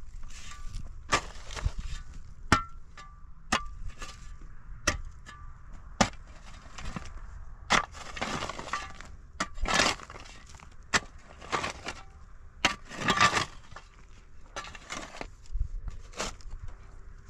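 Hand tool striking hard stony ground in uneven blows, roughly one a second, with a few longer crunching scrapes of loosened earth and rock: digging out a well by hand.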